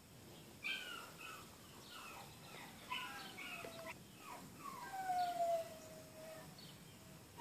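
Neapolitan mastiff puppies whining and whimpering: a string of short, high cries that slide down in pitch, several overlapping, with one longer falling whine about five seconds in.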